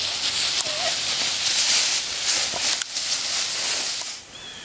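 Footsteps crunching and shuffling through dry fallen leaves, an uneven rustling hiss.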